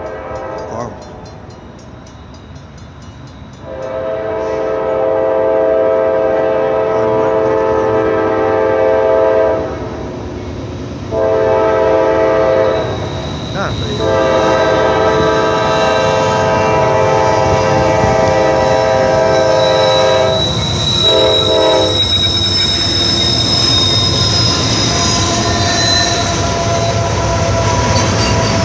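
Norfolk Southern freight locomotive's Nathan K5LA five-chime air horn blowing for a grade crossing: it starts about four seconds in with a long blast, then a shorter one, another long one and a short one. After that, the passing locomotives rumble loudly, with faint wheel squeal near the end.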